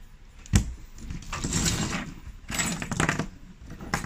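Handling noise from a tablet being moved about by hand on a work mat: a sharp knock about half a second in, then two scraping, rustling stretches of about a second each, and a click near the end.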